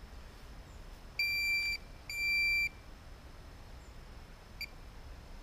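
Handheld metal-detecting pinpointer giving two steady high beeps, each about half a second long, as it is switched on, then a brief chirp near the end.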